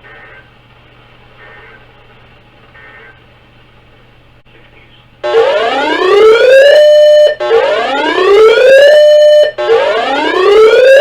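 A quiet stretch with a low steady hum, then about five seconds in a loud siren-style alert tone starts. It is a rising wail that levels off and holds, repeating about every two seconds, as used to open an emergency weather alert on the radio.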